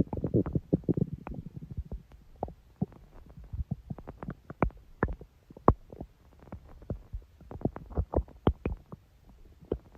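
Human stomach rumbling and gurgling: a denser low rumble for the first second or so, then scattered, irregular gurgles and pops.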